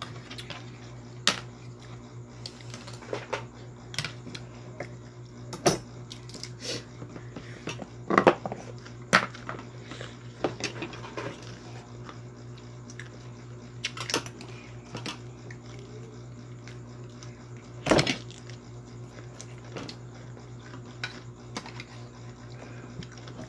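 A knife prying and knocking at oyster shells on a cutting board, mixed with a spoon clinking on a plate: about a dozen sharp clicks and knocks at irregular intervals, the loudest about 18 seconds in, over a steady low hum.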